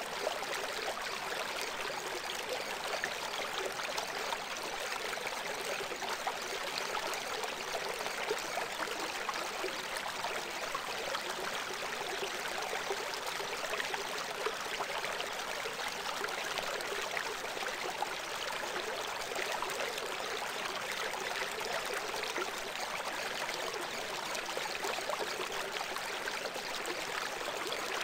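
Steady, even rushing sound of flowing water, like a stream, serving as the masking track of a subliminal audio.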